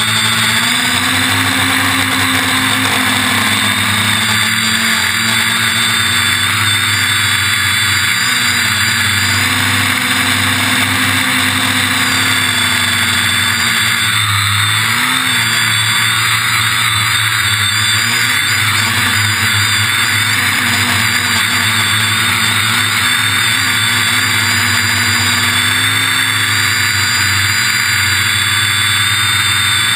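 Quadcopter's electric motors and propellers whining steadily right next to the onboard camera, with the pitch sagging and rising as the throttle changes, most clearly about fourteen seconds in.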